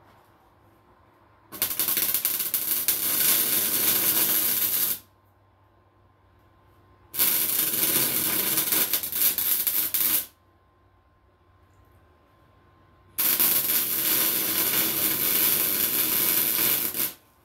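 Welding arc crackling in three runs of about three to four seconds each, starting and stopping sharply, with short pauses between: welding up the cracked exhaust pipe of a Polaris Sportsman 800.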